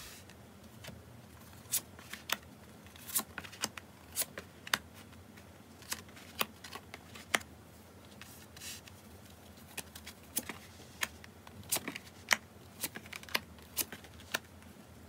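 Tarot cards being picked up and laid down one after another on a table mat: irregular sharp snaps and light taps of card stock, some in quick little clusters.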